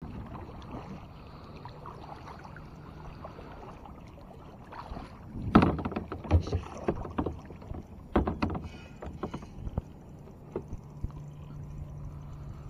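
Plastic kayak hull knocked and bumped as a fishing rod is handled, a cluster of sharp clunks in the middle over steady water and hull noise. A low steady hum sets in near the end.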